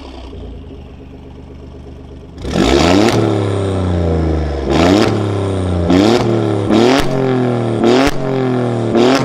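Alfa Romeo Giulia Quadrifoglio's twin-turbo V6, fitted with a catless downpipe and a Capristo cat-back exhaust with its valves open, idling and then revved while stationary. About two and a half seconds in comes one sharp rev, then five quick throttle blips about a second apart, each rising sharply and falling back toward idle.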